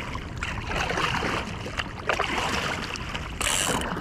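Kayak paddle strokes in the water: uneven splashing and trickling that surges every second or so.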